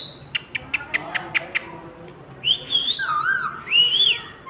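Ring-necked parakeet: a quick run of about seven sharp clicks, then several whistled notes that bend up and down in pitch.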